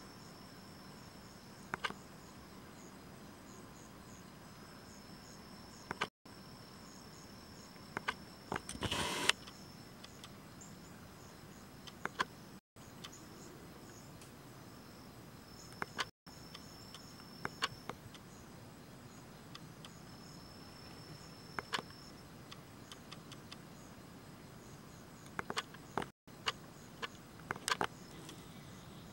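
Insects trilling in a thin, high, steady buzz that comes and goes, over faint outdoor background, with scattered soft clicks and a brief rustle about nine seconds in.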